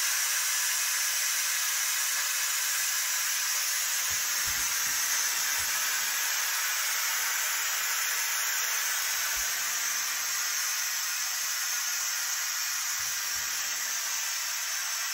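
Instant Pot Pro Plus pressure cooker venting steam through its release valve on quick release: a loud, steady hiss that holds almost unchanged throughout.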